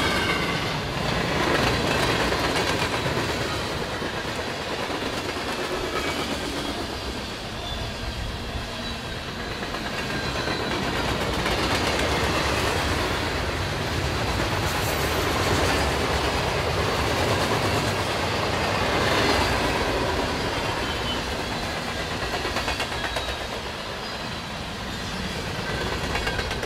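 Freight cars of a manifest train rolling past: a steady rumble of steel wheels with clickety-clack over the rail joints, swelling and easing as boxcars and covered hoppers go by, with a faint high wheel squeal near the start.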